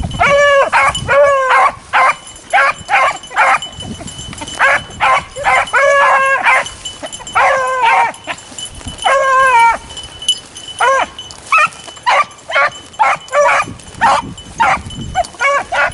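Beagles baying while running a rabbit track: a steady string of short chop barks mixed with longer drawn-out bawls, the hounds giving tongue on the scent.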